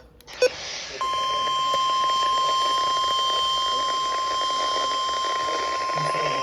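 NOAA Weather Radio warning alert tone played through a weather radio receiver: one steady high tone comes on about a second in and holds, over radio hiss. It signals that a warning bulletin follows, here a severe thunderstorm warning.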